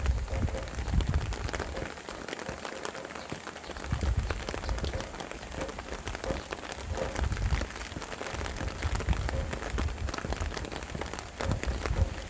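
Steady rain falling and pattering in dense small drops, with gusts of wind rumbling low that swell and die away every second or two.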